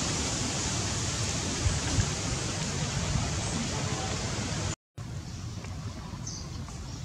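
Steady, even hiss of outdoor background noise, cut off by a brief dropout. After the dropout a quieter background follows, with a short high chirp about six seconds in.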